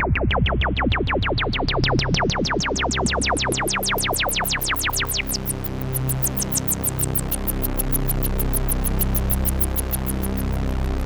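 Sequential Prophet X synthesizer playing a patch of fast, evenly repeating pulses over a sustained low bass drone. The pulses grow steadily brighter as the filter opens, and about five seconds in they thin to high ticks over a noisy wash.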